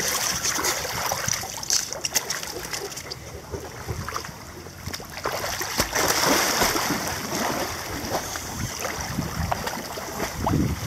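Water splashing and sloshing in a swimming pool, with a few sharp knocks in the first few seconds.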